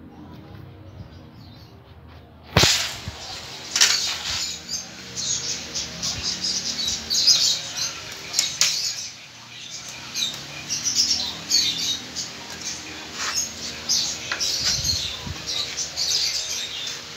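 Small birds chirping, many short high chirps coming and going irregularly from about three seconds in. A sharp knock about two and a half seconds in, and a few lighter knocks later.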